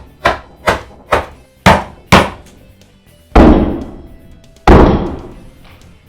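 Seven sharp knocks about two a second, then two heavy booms that each ring out over about a second, over quiet background music.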